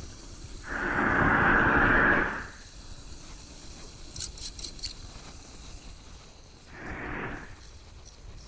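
Hand rake scraping leaves and debris across a metal storm drain grate in shallow running water: one long scrape about a second in, a shorter one near the end, and a few light clicks between them.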